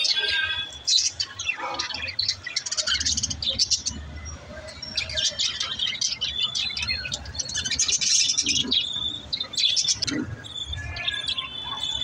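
A flock of budgerigars chattering: rapid, overlapping chirps and short whistled notes.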